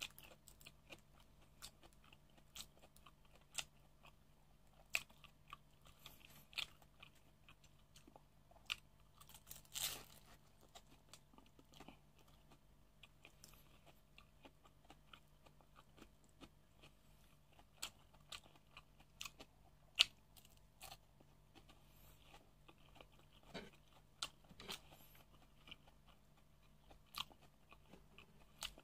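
Close-miked chewing and crunching of food, with scattered short, crisp clicks and a few louder crunches among softer mouth sounds, as of a crispy fried spring roll being eaten.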